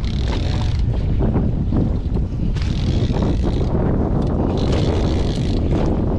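Wind buffeting the microphone on a boat: a loud, steady low rumble with patches of hiss coming and going.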